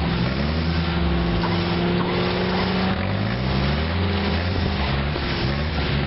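Suzuki Vitara 4x4's engine revving as it pushes through a muddy off-road rut. Its pitch climbs and drops several times as the throttle is worked.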